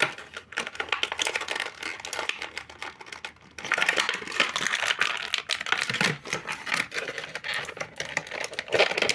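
Stiff plastic packaging crinkling, crackling and clicking as an action figure is worked loose from its plastic tray, getting louder and busier about halfway through.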